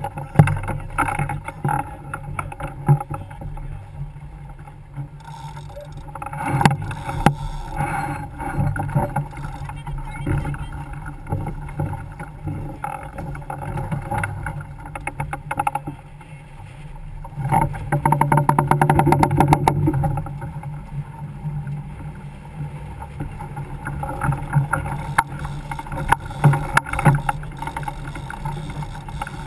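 Water rushing along a sailboat's hull under sail, with wind on the microphone and occasional knocks from gear on deck. It grows louder for a couple of seconds a little past halfway.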